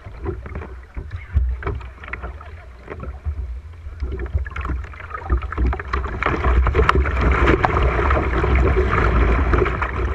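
River water rushing and splashing against a plastic kayak hull, with irregular knocks and slaps. The water grows louder and denser about six seconds in as the kayak runs through a choppy riffle.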